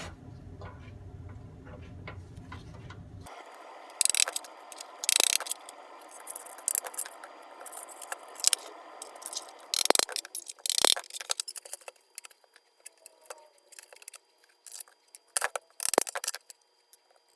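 Sharp metallic clinks, taps and scrapes of hand tools working on a small sheet-steel toolbox, coming irregularly with a few louder knocks.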